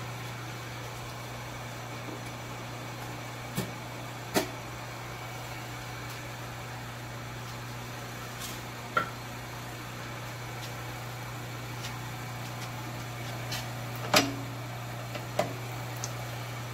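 Steady low hum from the powered-up Sheldon lathe, with about five sharp clicks and knocks as its controls are handled. The loudest knock comes a couple of seconds before the end.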